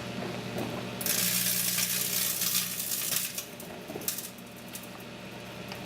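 Microwave oven running with its steady hum while something inside crackles and sizzles, loudest for a couple of seconds about a second in, then fading to scattered pops.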